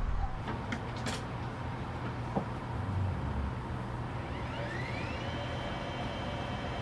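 Steady hum inside the cabin of an Airbus A220 airliner, with a few light clicks. About four seconds in, a whine rises in pitch for about a second and then holds steady.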